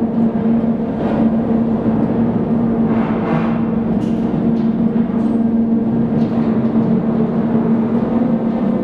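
The turning machinery of a 406 mm coastal gun turret running as the turret moves: a loud, steady hum on a held low tone over a rumble, with a rougher patch of mechanical noise about three seconds in.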